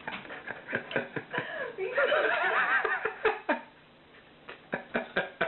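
A person laughing hard off-camera in short repeated bursts, rising to a long, high, wavering laugh about two seconds in, then trailing off into a few quieter snickers.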